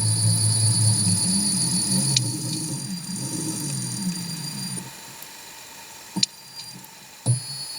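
Steady high-pitched electronic whine over a wavering low hum. The hum fades about five seconds in, and two sharp clicks follow near the end.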